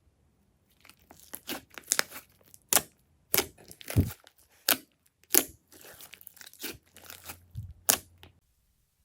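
Irregular crinkling, tearing and sharp crackling from materials being handled, with a dozen or so loud snaps among them. It stops abruptly about eight seconds in.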